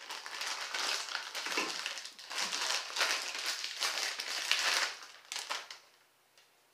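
Plastic zip-top bag crinkling and rustling as it is pulled open and a beer can is slid out of it, in irregular bursts.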